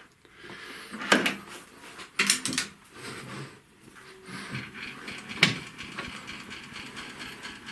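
Handling noise at a metal lathe: a few sharp knocks and clunks, the loudest about five and a half seconds in, with low rustling between.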